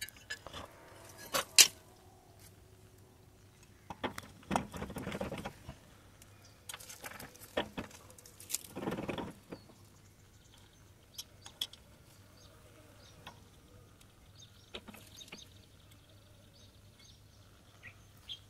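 Scattered rustling and light clicks over a quiet background, with a few faint bird chirps.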